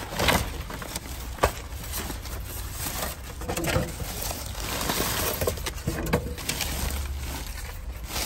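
Plastic trash bag and bubble wrap rustling, with small cardboard boxes knocking and shifting, as a gloved hand rummages through them in irregular bursts.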